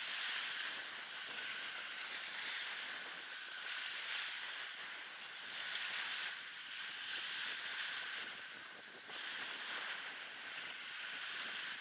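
Small wind-driven waves breaking and washing up a shingle-and-shell beach, the surf swelling and fading every second or two, mixed with wind noise on the microphone. Noise reduction and a high-pass filter leave mostly a thin hiss.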